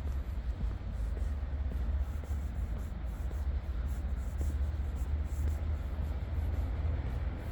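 Footsteps of someone walking, about two a second, over a steady low rumble of city street noise.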